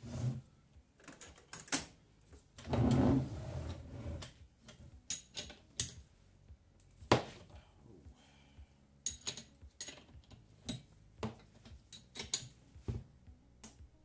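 Irregular metallic clicks, clinks and knocks of hand tools and loose parts being handled while a motorcycle's front forks are taken apart, with a longer, duller noise about three seconds in.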